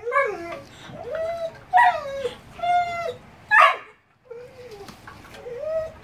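A dog whining and yowling in a string of short pitched calls, some rising and falling, with one sharp bark about three and a half seconds in.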